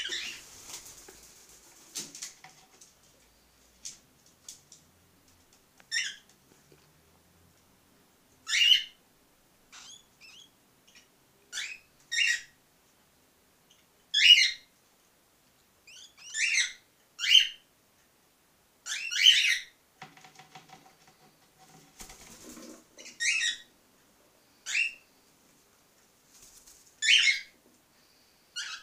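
Cockatiels chirping: short, high calls that bend in pitch, repeated one every second or two with irregular gaps, some in quick pairs.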